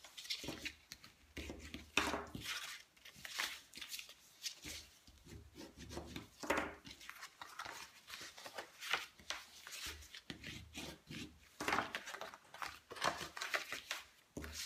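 Cardstock being folded and creased by hand on a wooden tabletop: irregular paper rustles, rubs and light taps.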